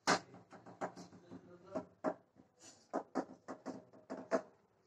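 An irregular run of about a dozen light knocks and clicks, sharpest at the very start, ending shortly before the end.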